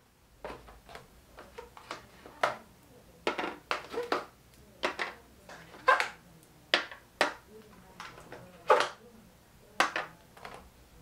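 Small glass gel polish bottles clicking and knocking as they are taken off a shelf and set into a box: a dozen or so irregular clicks, the loudest about six and nine seconds in.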